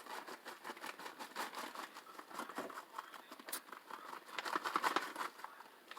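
Plastic bag of shredded cheddar crinkling and rustling as cheese is shaken out of it, faint and busy, a little louder near the end.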